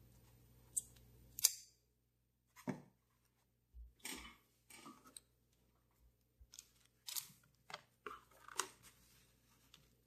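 Handling noise from small plastic zip-lock parts bags rustling and crinkling, mixed with light clicks of small lighter parts, in a string of short scattered sounds with a brief silent gap about a second and a half in.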